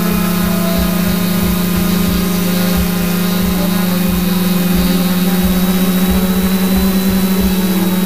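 Camera drone's propellers buzzing steadily in a hover: a constant low drone with thin higher whines over it, and irregular low thumps underneath.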